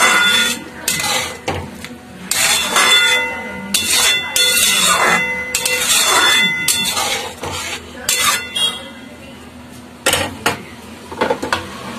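Metal spatula scraping and knocking against the sides of a metal kadai in irregular strokes, with a ringing clink, while stirring a thick chickpea curry.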